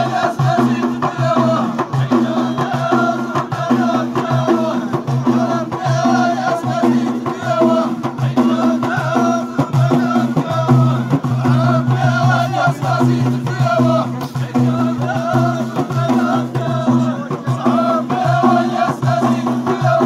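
Ahidous: a line of men chanting together in unison, with bendir frame drums struck in a steady beat underneath.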